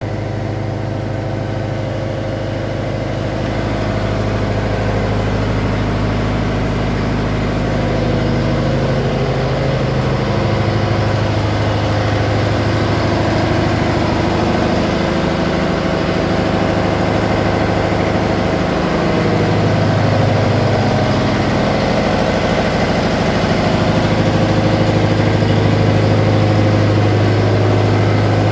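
Engines and machinery running steadily in a cargo ship's engine room: a loud, continuous drone with a deep hum and several steady tones.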